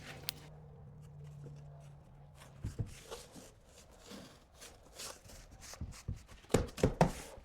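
Quiet, scattered light knocks and clicks of objects being handled, with a faint low hum in the first couple of seconds and a few sharper knocks near the end.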